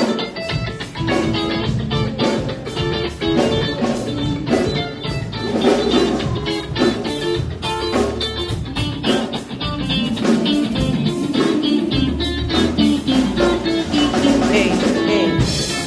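Band music at a soundcheck: guitar playing over a drum kit, with regular drum strokes throughout.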